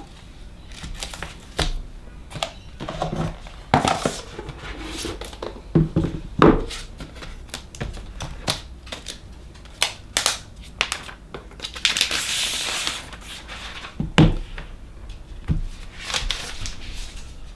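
Unboxing sounds from a cardboard box and its packaging being handled: scattered taps and knocks, with a longer rustle of wrapping about twelve seconds in.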